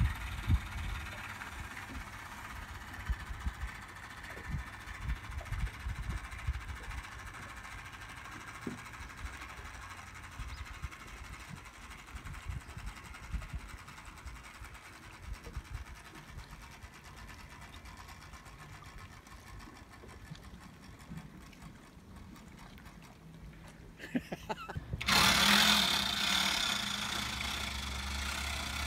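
A faint steady mechanical whir with wind buffeting the microphone. About 25 seconds in, it gives way suddenly to a louder boat engine idling steadily.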